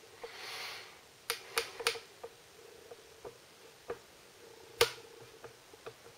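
Handling noise from a handheld camera being tilted: scattered light clicks and taps, about a dozen, the loudest just under five seconds in, after a brief soft rustle at the start.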